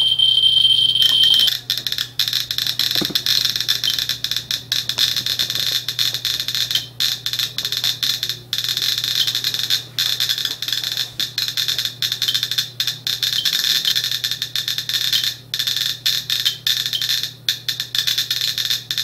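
GQ GMC-300E+ Geiger counter clicking rapidly and irregularly, counting radiation from uranium-glazed Fiestaware held to it, at roughly two dozen counts a second. A steady high-pitched tone stops about a second and a half in.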